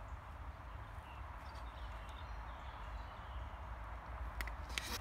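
Low wind rumble on the microphone with faint handling noise, then a few sharp clicks near the end as a hard plastic phone case and its carabiner are handled.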